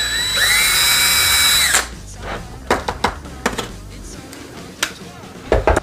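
Small electric drill running with a high motor whine that rises in pitch, widening a hole in a plastic battery cover, and stopping about two seconds in. A few sharp clicks and taps of plastic being handled follow.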